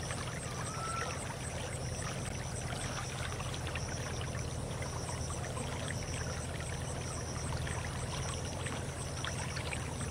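Steady rush of shallow water flowing along a small field canal, with faint high chirps repeating about three times a second.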